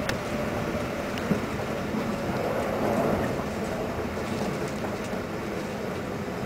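Steady running noise of a Keikyu 600 series electric train heard from inside the front car, its wheels rumbling on the rails, with one sharp click just after the start.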